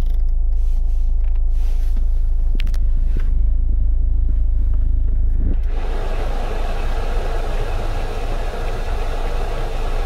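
Steady low rumble of the car's idling engine heard inside the cabin, with a few light button clicks. About halfway through, a steady rushing of air from the climate-control blower fan comes in and takes over.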